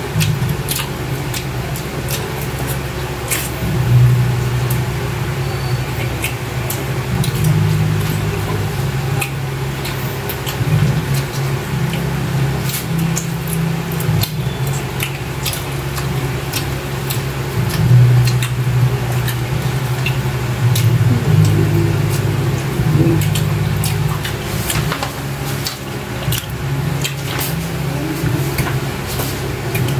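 Two people eating grilled chicken and rice with their hands: chewing, lip smacking, meat being torn and fingers clicking on the plate and sauce bowl. A steady low hum runs underneath, swelling and easing every few seconds.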